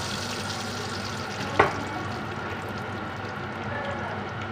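Hot fat sizzling steadily in a frying pan, with one sharp click about one and a half seconds in.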